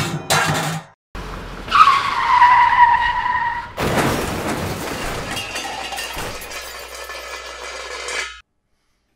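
Craftsman 16-gallon wet/dry shop vac dragged across a concrete floor by its hose, its casters scraping with a drawn-out squeal. About four seconds in it topples over with a loud crash, followed by scraping and rattling that cuts off suddenly.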